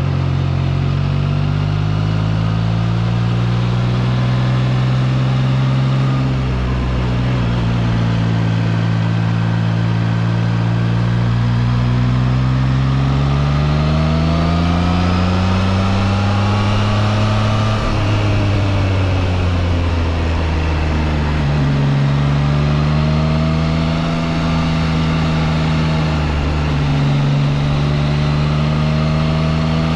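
Triumph Trident 660's inline three-cylinder engine pulling under way, its pitch climbing in steps as the bike accelerates through the gears, then dropping abruptly just past halfway and running steadier at lower revs.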